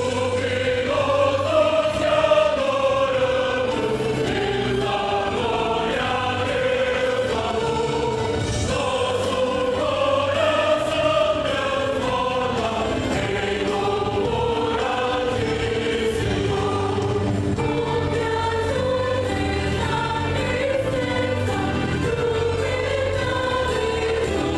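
Youth choir singing a gospel song in unison over instrumental backing, held melody lines rising and falling.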